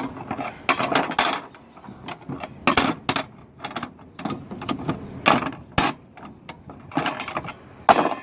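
Irregular metallic clanks, knocks and rattles as a coiled steel-bar spring ring is handled and worked by hand.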